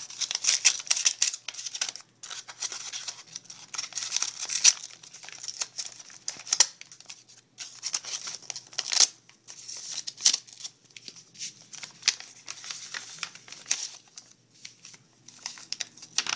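Paper envelope being cut open along its edge, then pulled open and its folded paper handled: a run of irregular scratchy cutting, tearing and crinkling paper sounds.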